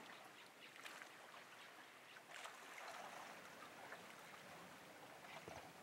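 Near silence: faint lakeside ambience with gentle water lapping.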